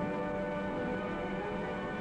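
Orchestral opening-title music, a chord of several notes held steadily.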